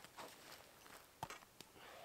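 Faint, sparse crackles and snaps from a freshly lit twig-and-kindling campfire, the sharpest about a second in, with soft rustling on the leaf litter as a person kneeling beside it shifts and gets up.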